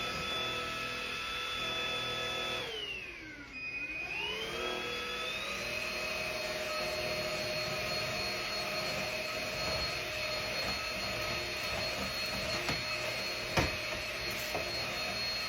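Cordless stick vacuum's motor running with a steady whine. A few seconds in it briefly winds down, then spins back up to a slightly higher steady pitch. Near the end there is one sharp knock.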